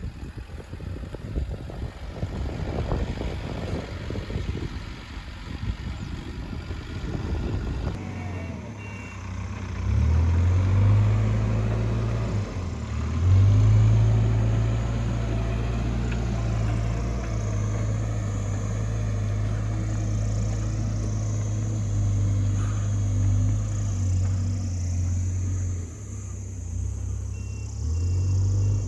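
Car driving slowly on an unpaved gravel road. For the first eight seconds or so there is crackly tyre and road noise, then a steady low engine drone takes over, with a few short dips.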